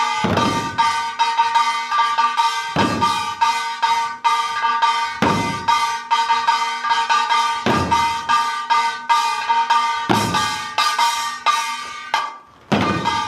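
Korean buk barrel drums beaten in a fast, driving rhythm by a drum-dance ensemble, with a heavy accented stroke about every two and a half seconds over a steady ringing pitch. The drumming breaks off briefly near the end, then comes back in.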